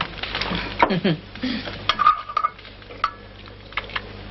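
Metal ladle and crockery clinking and knocking as hot food is dished from a pot onto a plate, with one short ringing clink about two seconds in.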